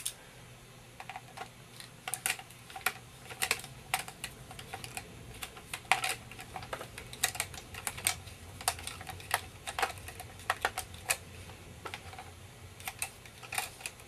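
Irregular small clicks and ticks of a hand screwdriver turning a Phillips-head screw back into the bottom cover of an Asus Eee PC netbook.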